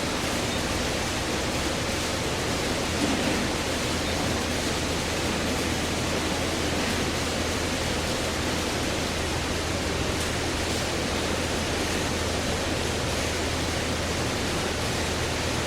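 Steady machine noise: an even hiss over a constant low hum, unchanging throughout.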